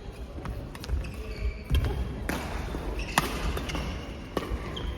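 A doubles rally in an indoor hall: sharp hits about once a second, five in all, with short high shoe squeaks on the court floor between them.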